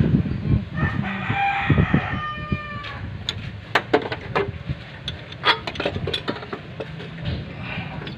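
A rooster crows once, starting about a second in: one long call that falls away at the end, near 3 seconds. After it come scattered sharp metallic clicks of a wrench and hand tools on the engine.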